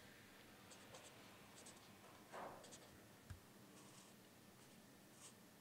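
Faint scratching of a pen writing on a stack of paper, in short strokes. There is a soft rustle about two and a half seconds in and a light low thump just after.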